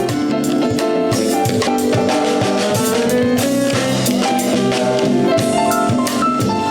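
Instrumental music with a drum kit and a steady beat, with sustained melodic notes.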